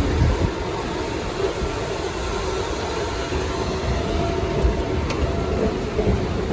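Steady rumble of an MRT train, with a faint click about five seconds in.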